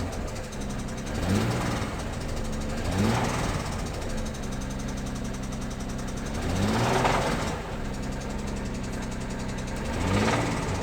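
Car engine idling steadily, blipped four times: each blip is a short rise and fall in revs, about a second in, at three seconds, a longer one around seven seconds, and one near the end. The engine is being checked for a suspected throttle-valve rattle.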